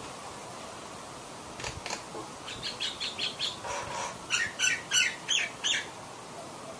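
A bird calling: a quick series of short, high notes, about three a second, starting under two seconds in and stopping near the end, over a steady background hiss.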